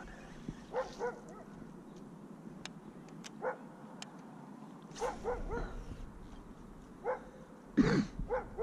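A dog yipping and whining in short calls, a few at a time, the loudest cluster near the end.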